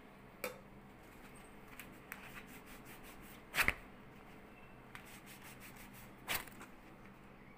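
Soft rubbing and rustling of hands and a waxing strip on a wax-coated forearm, with three short, sharp rustles. The loudest rustle comes about three and a half seconds in.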